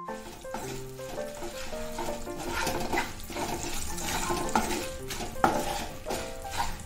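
A wooden spatula stirring and scraping spices, dried chillies and curry leaves frying in oil in a non-stick kadai: light frying with a few sharper knocks of the spatula on the pan. Soft background music with a melody plays under it.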